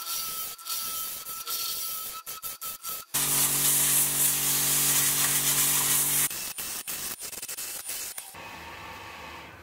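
Turning tool cutting a spinning wood blank on a lathe: a scraping hiss that breaks off and resumes again and again. From about three seconds in, a loud steady hiss of compressed air blown from an air-hose gun for about three seconds. Then the cutting resumes and gives way to the lathe's quieter steady hum near the end.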